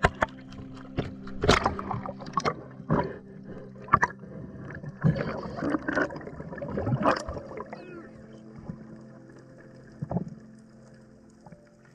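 Water sounds: irregular splashes and knocks over a steady low hum, busy in the first half, then quieter with one last knock about ten seconds in.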